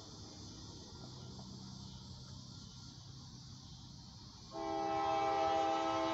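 Approaching freight locomotive's air horn sounding a steady chord, starting suddenly about four and a half seconds in after a quiet stretch with only a faint low hum.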